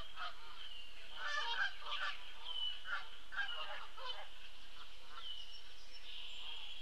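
Geese honking in a run of short, repeated calls, with songbirds singing behind them.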